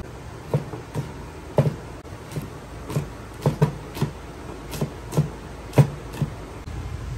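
Steel cleaver chopping peppers on a wooden chopping board: about a dozen sharp, uneven knocks roughly half a second apart.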